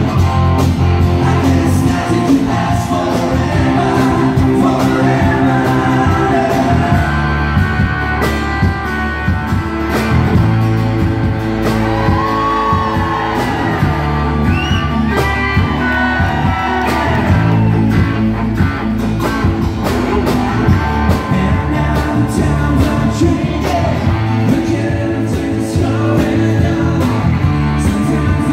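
Live country band playing amplified through a PA: electric and acoustic guitars, bass and drums, with a sung vocal. Several notes bend up and down midway.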